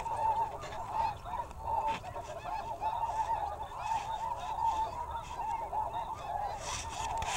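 Snow geese calling: a continuous chorus of many short, overlapping high-pitched honks.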